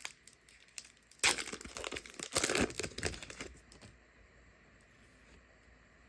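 Trading cards and packaging being handled, with a stretch of crinkling and rustling from about a second in until about three and a half seconds, then quiet.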